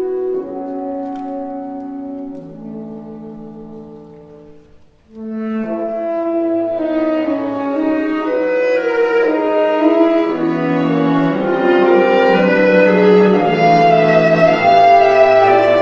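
Chamber ensemble of tenor saxophone with strings, brass and woodwinds playing slow sustained chords. The music fades almost to nothing about five seconds in, then the ensemble re-enters and swells steadily louder in layered held notes over a low cello line.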